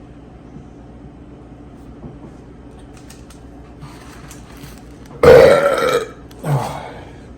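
A man burping loudly twice: a long burp about five seconds in, then a shorter one right after it.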